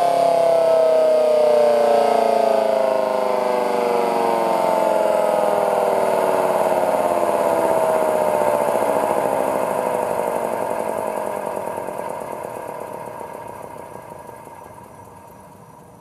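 Federal Signal Model 2T electromechanical siren winding down after a growl. Its single tone falls slowly and steadily in pitch as the rotor coasts. It stays loud for about ten seconds, then fades away.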